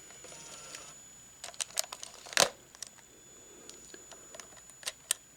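Sony CCD-TRV99 Hi8 camcorder being handled: a scatter of small clicks and taps, the loudest about halfway through, over a faint steady high-pitched whine.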